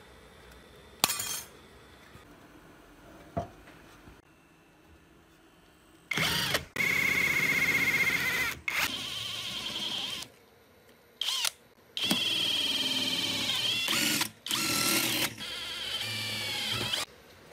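Hand-held electric drill boring holes through sheet metal in several bursts with short pauses between them, its motor whine falling in pitch at times. Before the drilling, a couple of faint sharp clicks from metal snips cutting the sheet.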